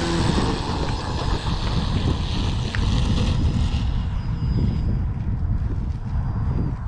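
Wind buffeting the microphone: a heavy, uneven low rumble with hiss above it.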